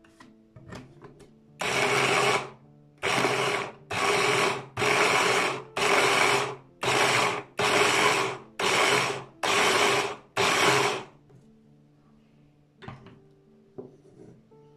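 Electric food chopper run in about ten short pulses, each under a second, its blade whizzing through tomatoes, peppers and parsley and turning them to a coarse purée. A few light knocks near the end.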